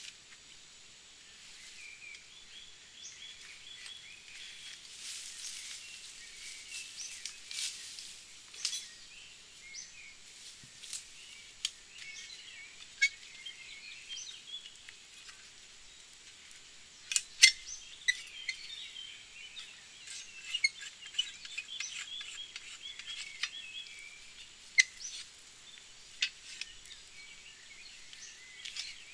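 Birds chirping and singing in woodland, with scattered sharp clicks and rustles from a small folding shovel being handled and unfolded; the loudest clicks come a little past halfway.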